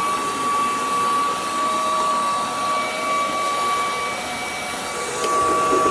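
Roborock Dyad Pro wet-and-dry floor vacuum running in auto mode: a steady high motor whine over a rushing hiss of suction. A faint click comes near the end.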